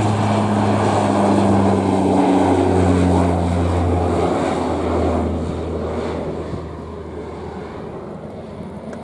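CASA CN-235's two General Electric CT7 turboprops and propellers droning as the aircraft passes low by. The hum drops in pitch a little over two seconds in as it goes past, then fades as it flies away.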